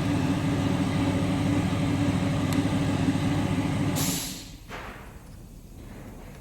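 A steady, loud machine hum that cuts out about four seconds in with a short burst of hiss, then a low background.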